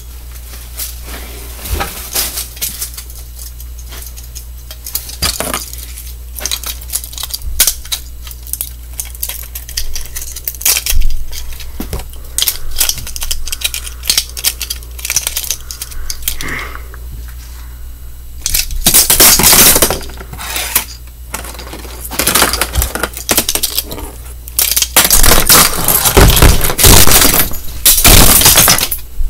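Plastic pieces of a broken alarm clock clicking and clattering as they are handled and pulled apart by hand. Louder bursts of clattering, breaking impacts come about two-thirds of the way through and again near the end.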